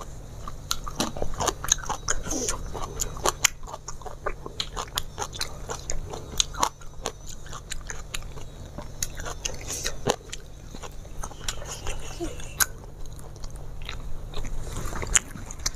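A person chewing and biting food close to the microphone: wet mouth sounds with many irregular sharp clicks through the whole stretch.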